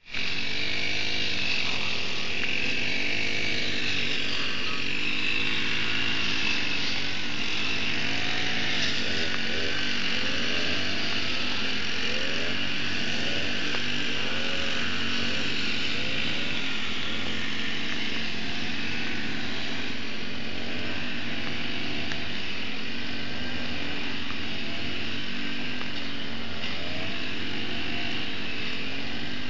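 Several two-stroke grass trimmers (brush cutters) running together, their engines revving up and down unevenly as they cut grass, over a steady high buzz.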